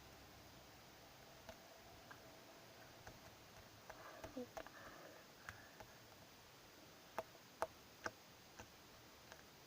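Scattered small pops and clicks of slime being worked by hand, about a dozen at irregular intervals, with a little cluster around the middle and the sharpest ones near the end.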